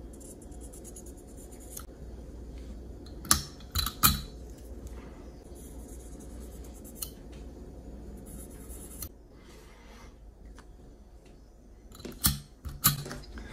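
Green Sharpie marker rubbed faintly along the edge bevel of a clamped knife blade, inking the bevel before sharpening. A few sharp clicks and taps come about three to four seconds in and again near the end.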